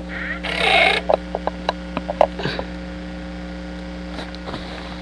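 Handling noise: a short rustling rush, then a quick run of small clicks and taps, over a steady electrical hum.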